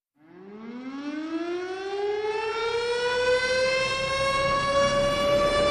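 Warning siren winding up from silence: one long rising tone that climbs steadily in pitch and grows louder, levelling off near the end.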